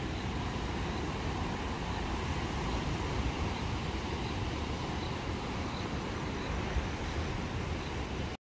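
Surf breaking and washing on a sandy, rocky beach, a steady rushing noise heavy in the low range. A faint high chirp repeats about every three-quarters of a second.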